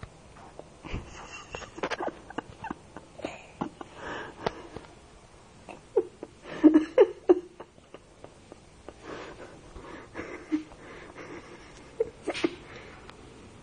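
A young child sniffling, with short catching breaths and brief whimpers as he settles after crying, among scattered small clicks and knocks.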